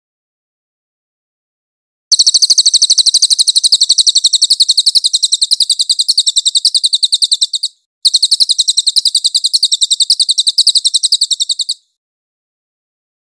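Cililin (crested jay) calling in two long, very rapid, high-pitched rattling trills. The first starts about two seconds in and runs for nearly six seconds; the second follows after a brief break and lasts about four seconds.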